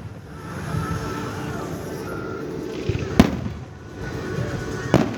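Fireworks shells bursting in the sky: a sharp bang about three seconds in, the loudest, and another near the end, over steady background noise.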